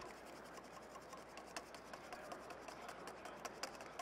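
A utensil stirring a thick mixture in a stainless-steel mixing bowl, with faint, rapid, irregular clicks and scrapes against the metal.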